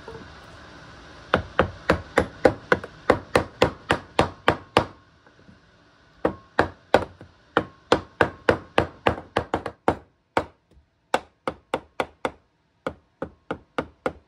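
A hammer strikes the end of a wooden board that is pressing a brake caliper piston down into its bore. The blows come about three a second in two quick runs with a short pause about five seconds in, then slower and a little softer near the end, as the piston seats.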